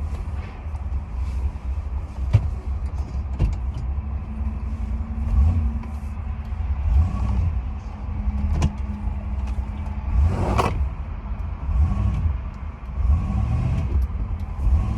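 Car engine with a low, uneven rumble and a steady hum through the middle, with a few sharp clicks and a louder noise about ten and a half seconds in.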